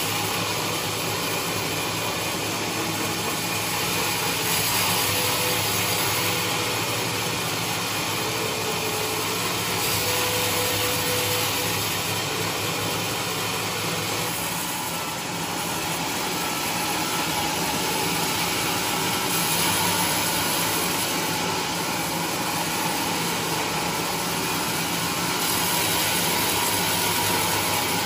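Large vertical band sawmill running steadily, its blade cutting lengthwise through a big trembesi log on the carriage.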